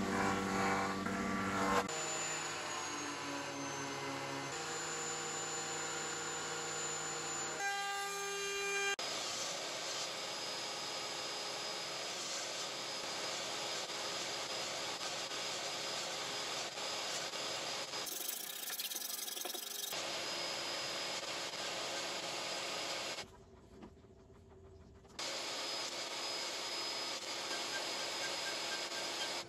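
Woodworking machines running and cutting hardwood in a string of short clips, starting with a benchtop jointer surfacing a glued-up leg blank. The machine noise changes from clip to clip and drops away briefly a little after three quarters of the way through.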